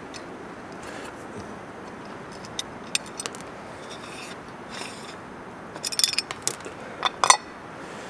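Metal parts of a snowblower auger gearbox being separated and handled: a few sharp clicks and scrapes, then a quick cluster of clinks about six to seven seconds in as the gearbox cover is set down.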